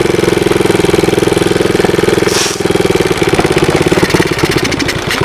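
70cc Chinese ATV's small single-cylinder engine running steadily, then dying near the end as the fuel tank runs dry.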